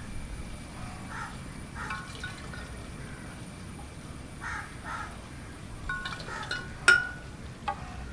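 Metal ladle scraping a pan and clinking against a glass jug as passion fruit syrup is ladled across, with one sharp, ringing clink about seven seconds in.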